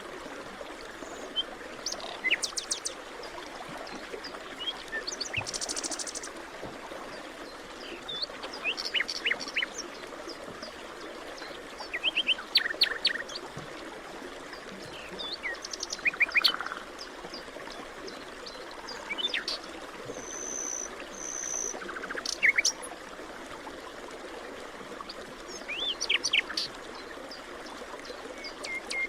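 Several birds chirping and singing in short, scattered phrases and trills over a steady background rush that sounds like running water.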